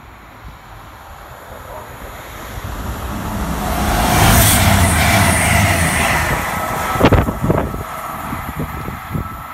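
CrossCountry Voyager diesel multiple unit passing through a station at speed: engine and wheel-on-rail noise builds, is loudest as the train runs by, then fades. A few sudden low thumps follow about seven seconds in.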